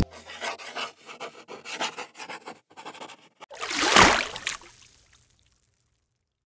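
Sound effect of a pen scratching on paper in quick strokes as a drawing is sketched, then one swelling whoosh about four seconds in that fades away.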